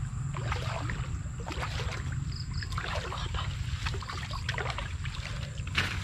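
Shallow muddy water splashing and sloshing in short, irregular strokes as a person wades through it and moves a woven bamboo basket, over a steady low rumble.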